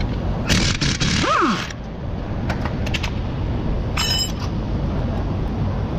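Impact wrench run on a bolt at the back of a BMW front wheel hub for about a second, then winding down with a quickly falling whine. About 4 s in comes a short, bright metallic clink.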